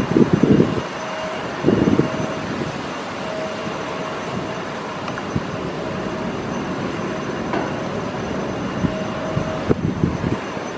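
Embraer regional jet's turbofan engines running as it rolls along the runway, heard at a distance as a steady roar. Short bursts of low rumble come about two seconds in and again near the end.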